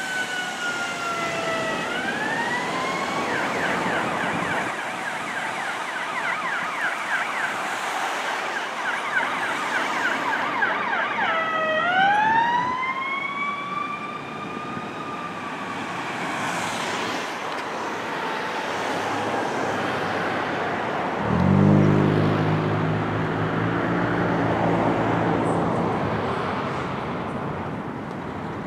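Electronic sirens of fire and ambulance units running code 3: a wail winding down and back up, a fast yelp for several seconds, then a long rising wail that slowly fades. About 21 seconds in, a fire apparatus air horn sounds in a long, low, steady blast lasting several seconds, the loudest moment.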